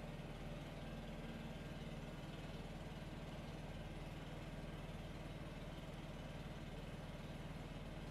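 Gas-powered leaf blower running steadily outside the bus, heard muffled through the closed door as it blows air along the door seam to find the air leak behind a whistle.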